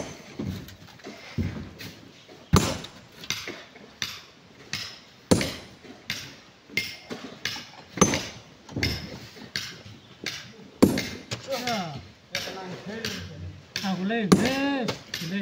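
Hammer blows on rock: heavy strikes about every two and a half to three seconds, with lighter knocks between them. A person's voice comes in near the end.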